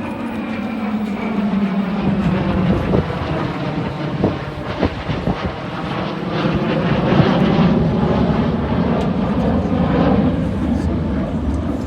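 Jet engines of a USAF B-2 Spirit bomber roaring as it flies past, the sound swelling to its loudest about two-thirds of the way through. A few sharp knocks come about three to five seconds in.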